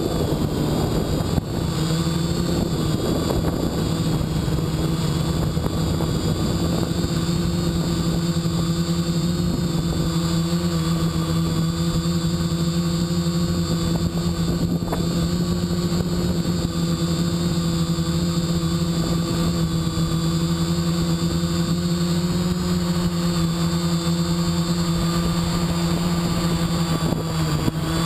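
Spider Quad quadcopter's motors and propellers, heard from the onboard GoPro: a steady propeller drone holding one pitch, with a rushing noise underneath.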